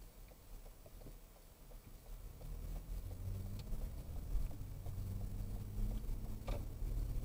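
Car engine and road noise heard from inside the cabin, a low hum that comes up as the car pulls away from a stop and then runs steadily. A single click near the end.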